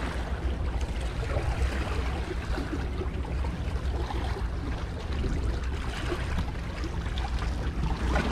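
Wind buffeting the microphone with a steady low rumble, over small sea waves lapping and trickling against the rocks of a jetty.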